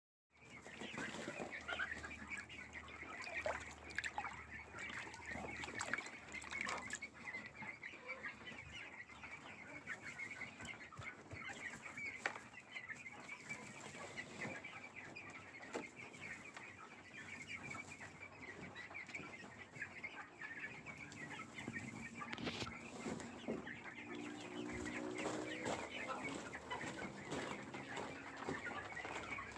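A flock of chickens clucking and chirping faintly, with many small clicks throughout and a few longer, lower clucks near the end.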